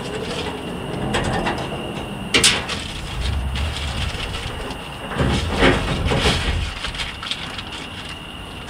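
Clunks, knocks and scraping of hands working on a boat's fuel line and fittings, with one sharp knock about two seconds in and heavier handling sounds in the middle. A steady high tone runs underneath.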